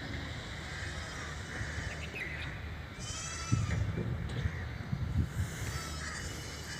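A few short bleating animal calls over a steady low rumble.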